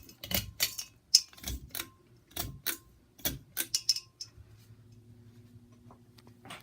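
A quick series of about a dozen sharp clicks over four seconds, some with a brief high tone, then the faint steady hum of a Harbor Breeze Pulsar ceiling fan's motor.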